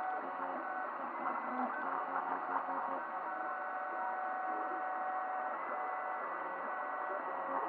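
3D printer at work: its stepper motors whine in steady tones that jump to a new pitch each time the print head changes move, over a constant mechanical hum.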